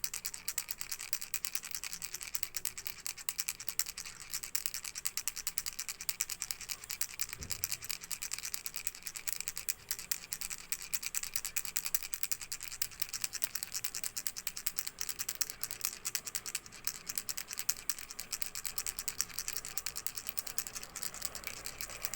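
A baby's toy rattle shaken without pause, giving a dense, fast stream of small hard clicks that is mostly high-pitched.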